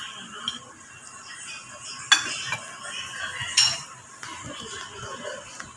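Spoon and fork clinking against ceramic plates and bowls while eating, with two sharper clinks about two and three and a half seconds in.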